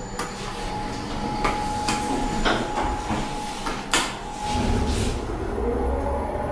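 Rope-traction passenger elevator: the doors slide shut with a few clicks and a knock, then the car starts down with a low steady rumble.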